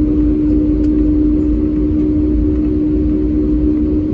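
Cabin noise inside an Airbus A320neo on the ground after landing: a steady low rumble with a constant hum.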